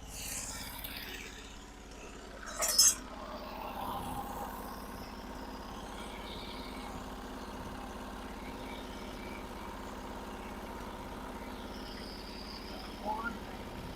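A sawmill's engine idling steadily, with a short loud clank about three seconds in.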